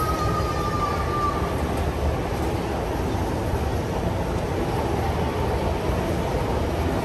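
Steady low rumble of city street traffic, with a thin high tone that fades out about a second in.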